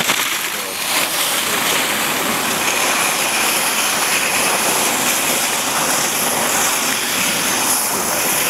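Giant slalom race skis carving and skidding over hard, icy snow: a loud, steady scraping hiss from the ski edges.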